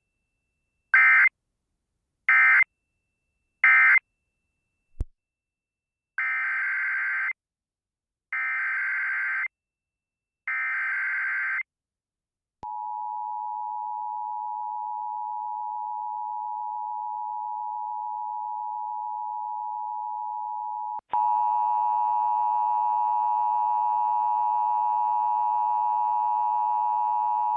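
Emergency Alert System signalling between two alerts: three short SAME data bursts closing the previous warning, then three longer SAME header bursts opening the next one. A steady attention tone follows, and about two-thirds of the way through it gives way to a louder, richer attention tone with many overtones.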